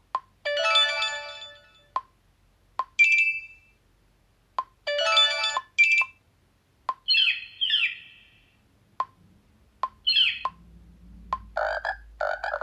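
Xiaomi Redmi 9A phone playing a quick run of short notification-tone previews one after another, each cut off by the next, with a sharp click before each. They start as chimes, then turn to chirping bird-like calls, and end in rough croaking bursts.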